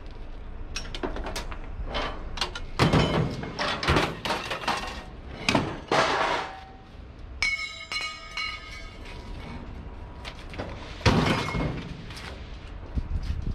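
Scrap being thrown down: a string of hard clanks and crashes at irregular intervals, with one piece ringing for about a second just past the middle.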